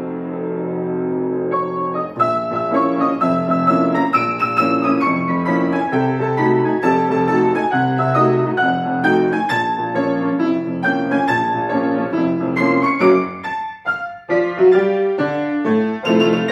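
Grand piano played four hands: a chord held for the first couple of seconds, then quick running notes, and several short, sharp chords near the end after a brief break.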